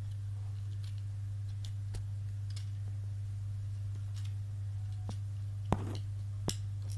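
Small clicks and taps of tape-measure parts being handled and fitted by hand, two sharper clicks about two-thirds of the way in, over a steady low hum.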